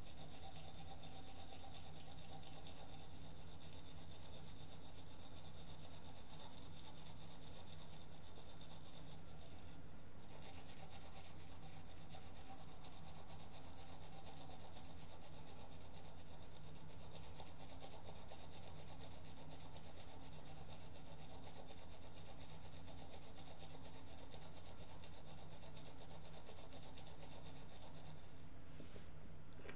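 Toothbrush scrubbing against teeth, a steady brushing rub that goes on without a break.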